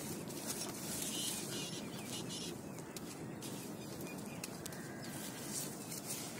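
Burning heap of matchsticks crackling, with irregular small pops and ticks over a steady hiss of flame.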